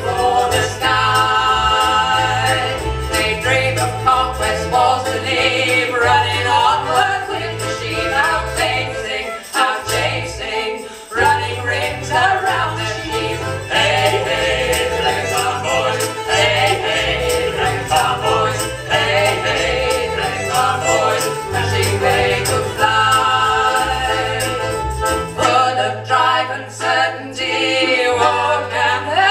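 Live folk band mid-song: singing over accordion, fiddle and electric bass guitar, with a steady rhythmic bass line that settles on one held low note near the end.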